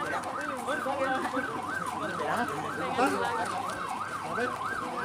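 An electronic siren in a fast yelp, its pitch sweeping up and down about three times a second without a break.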